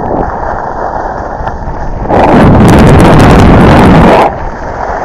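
Wind buffeting the camera microphone on an exposed mountaintop. A much louder gust runs from about two seconds in to just past four seconds, then drops back.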